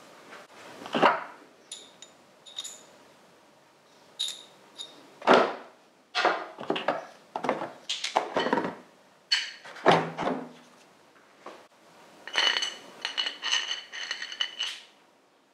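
Metal tools and parts being handled and set down: a string of knocks and thuds mixed with short metallic clinks that ring briefly. Near the end comes a quick run of ringing clinks, like small steel parts rattling together.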